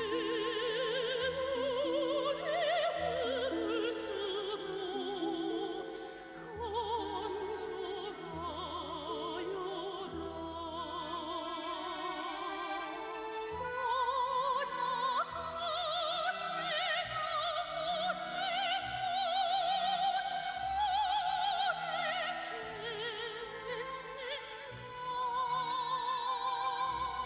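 Operatic singing with a wide vibrato over an orchestral accompaniment of sustained strings and bass notes.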